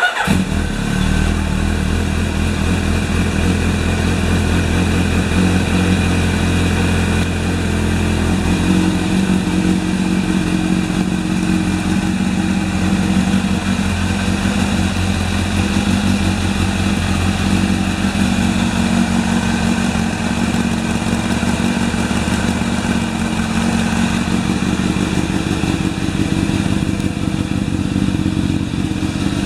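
Kawasaki GPZ900R's inline-four engine starting right at the beginning and then running steadily on newly fitted Keihin CR-MB35 carburettors, being set up before a first ride. It runs a little heavier for the first nine seconds or so, then settles.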